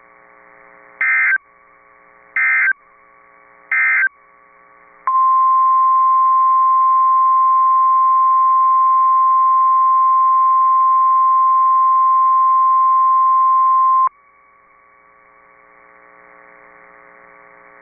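NOAA Weather Radio alert tones: three short bursts of warbling SAME digital data about a second and a half apart, the end-of-message code closing the previous warning. About a second later comes the steady 1050 Hz warning alarm tone, held for about nine seconds and cut off sharply.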